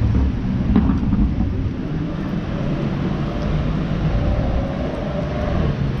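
Street traffic: passing cars and a truck make a steady low rumble of engines and tyres.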